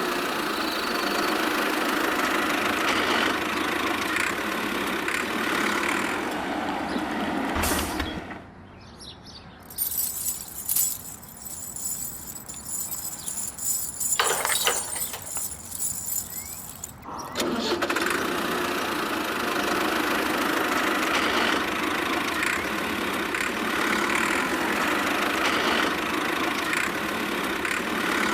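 A small motor running steadily. It drops out for several seconds in the middle, when a quieter, higher-pitched whine is heard, then resumes.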